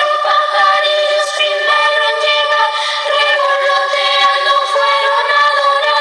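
Girls' children's choir singing a Christmas carol (villancico), holding sustained high notes.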